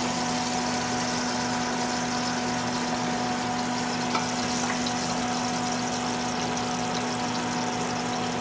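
A steady mechanical hum with a constant whine, as of a motor running unchanged throughout. About halfway through there is a light clink of the metal spatula against the aluminium pan.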